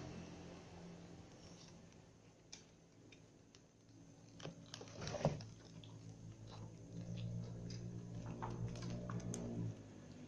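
Several cats and kittens eating from a shared tray: faint, irregular clicks of chewing and biting on food, with one short louder noise about halfway through, over a faint steady hum.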